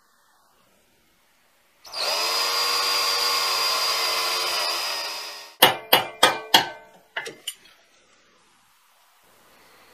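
DeWalt cordless drill running a small wire wheel brush against a metal plane knob, a steady whine for about three and a half seconds before it winds down. It is scrubbing silver overspray off the knob. Right after, four sharp metallic clicks in quick succession, then two lighter ones.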